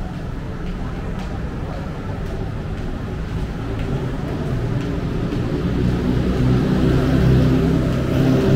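City road traffic with a heavy vehicle engine rumbling, growing louder over the last few seconds as it comes close, over a background of street voices.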